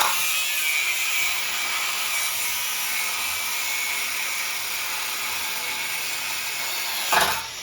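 Angle grinder cutting through the steel handle of an iron gate: a steady, high, hissing grind, with a brief louder surge about seven seconds in.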